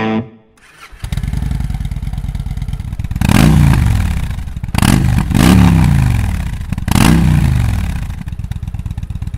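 Victory motorcycle V-twin through an aftermarket exhaust, idling with a fast even pulse and blipped up three times, each rev rising and falling back to idle.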